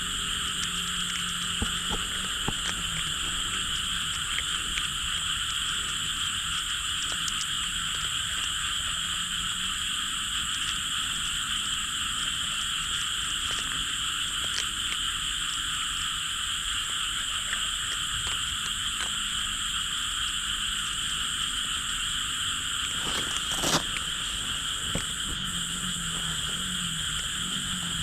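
A dense, unbroken chorus of frogs calling at night around farm fields, with one sharp click about three-quarters of the way through.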